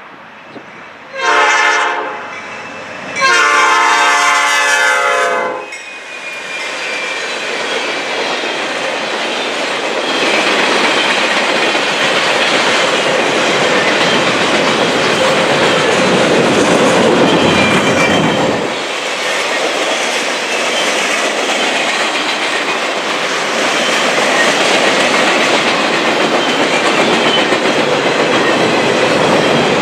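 A Norfolk Southern GE Dash 9 locomotive sounds its horn at the grade crossing, a short blast and then a long one. The locomotive and the empty rail train's cars then pass close by with a steady rumble and the clatter of wheels on the rail joints.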